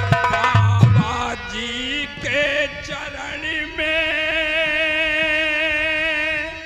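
Nautanki stage music: a few heavy drum strokes in the first second, then a male voice singing, which settles into one long held note with vibrato that stops just before the end.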